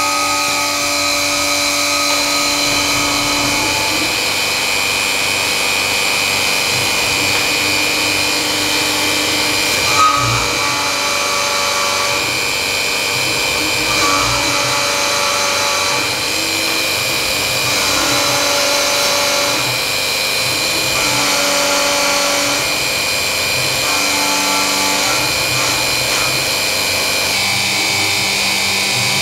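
BF20 milling machine under CNC control cutting aluminium with an end mill, its spindle driven by a 1 hp three-phase motor on a variable-frequency drive through a toothed belt. A steady machine whine, with tones that come and go every second or two as the cut moves, and a short knock about ten seconds in.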